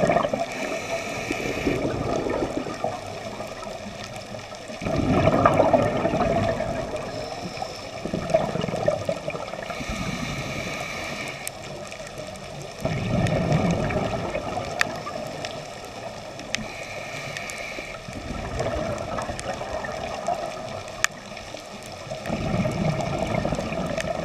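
Scuba diver breathing through a regulator underwater: bubbling exhales every few seconds, with short hissing inhales between them.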